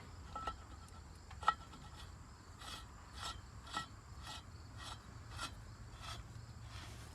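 Steel well drive pipe being worked and threaded together: a string of light metal clinks and scrapes, roughly two a second, each with a short ring.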